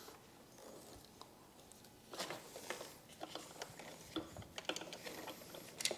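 Faint, irregular small clicks and rustles of hands handling wiring, ring terminals and a terminal bolt at a motorcycle battery, starting about two seconds in.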